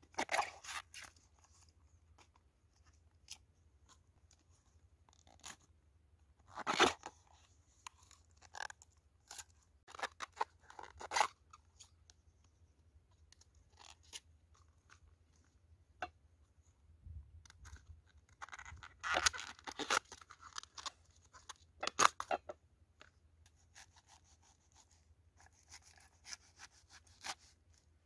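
Banana flower's tough outer bracts being peeled and torn off by hand: crisp tearing and snapping in scattered short bursts with quiet gaps between. Near the end, a knife starts slicing through the flower on a wooden board.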